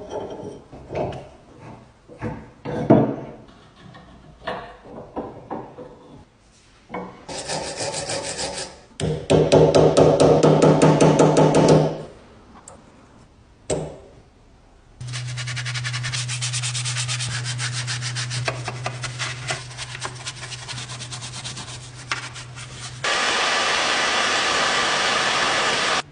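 Abrasive work on machine parts during a restoration: a few seconds of knocks and handling clicks, then fast rasping strokes, then long stretches of continuous grinding-like rasping over a steady low hum.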